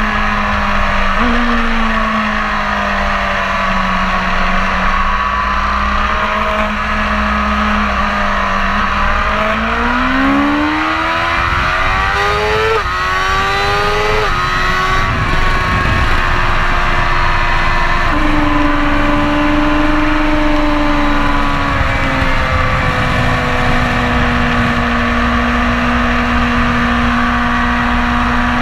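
BMW S1000RR's inline-four engine running on track: revs sag at light throttle, then climb hard from about a third of the way in with two quick upshifts, each a sudden drop in pitch. It then holds a steady note with a brief rise in the middle of the second half, over a constant rush of wind.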